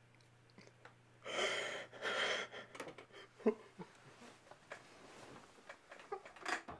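A man weeping: two heavy, breathy sobbing gasps about a second in, followed by quieter sniffles, small catches of breath and a few soft clicks, one sharper click about three and a half seconds in.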